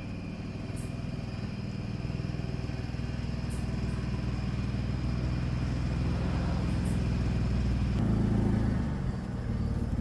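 2008 Jeep Wrangler Unlimited's 3.8-litre V6 running as the Jeep reverses slowly out of a garage, getting steadily louder as it comes closer.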